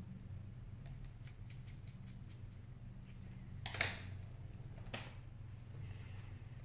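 Faint ticks and clicks of a small precision screwdriver working the bottom screws of an iPhone 6, then a couple of louder scrapes and knocks as the phone is picked up and handled, over a steady low hum.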